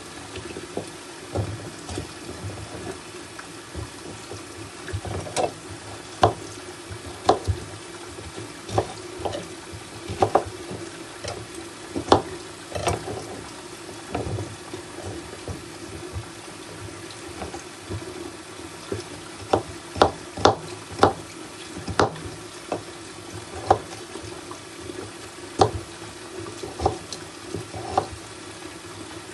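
Potato pieces being cut off with a knife and dropped into a stainless steel pot of water, making irregular plops, splashes and small knocks, more often in the second half. A steady low hum runs underneath.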